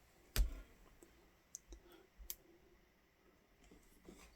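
A few faint, sharp clicks and taps on a quiet background, the loudest about half a second in, then three lighter ones over the next two seconds.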